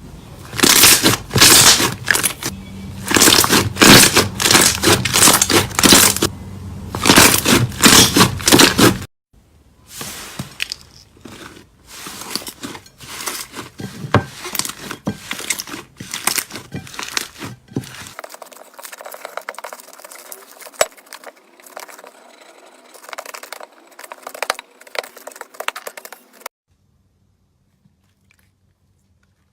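Slime being squeezed and worked by hand, giving repeated bursts of crackling and popping. It is loud for the first nine seconds, softer after that, and stops abruptly a few seconds before the end.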